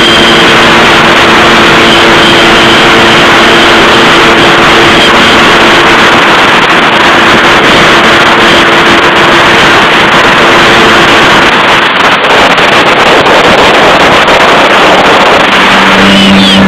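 Jet ski running under way, loud and steady: an engine hum beneath heavy rushing noise of wind and water. The engine tone fades about twelve seconds in, and a lower steady note comes up near the end.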